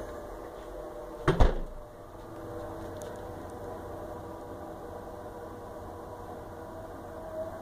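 Faint, steady droning tone on a few low pitches: the unexplained sound in the sky that people call "sky trumpets". A single loud thump cuts across it about a second and a half in.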